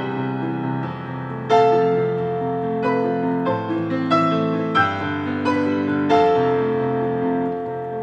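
Piano playing a slow piece: sustained notes and chords struck roughly every half second to second, with the loudest chords about a second and a half in and again near six seconds.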